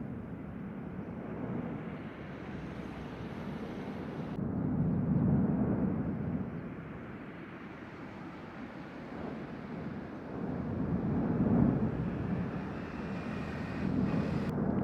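Low rumble of the Cumbre Vieja volcano erupting, swelling and fading in waves every few seconds, with the sound changing abruptly twice.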